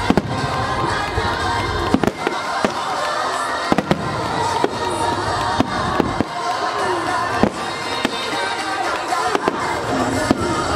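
Aerial firework shells bursting in a dense, irregular series of bangs, more than one a second, with music and crowd voices underneath.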